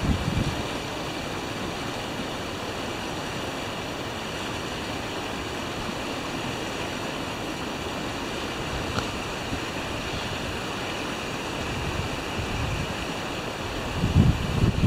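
Steady rush of wind and water, with low gusts of wind buffeting the microphone near the end.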